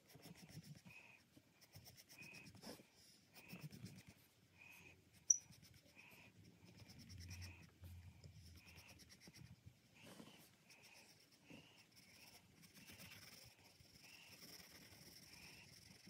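Faint scratching of a graphite pencil stroking and shading on paper, in short strokes that repeat about every half second, with one sharp tick about five seconds in.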